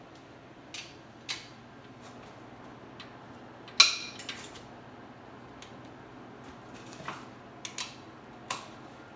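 Sharp metallic clinks of a steel socket wrench and socket on the main bearing cap bolts of a Ford 5.0 V8 block, about nine in all. The loudest comes about four seconds in and rings briefly.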